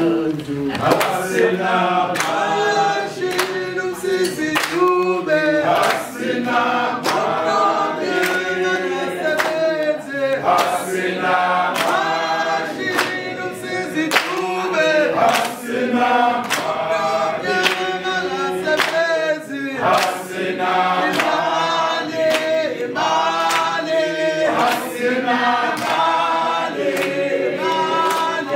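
A group of men and women singing together, with hand claps keeping a steady beat about once a second.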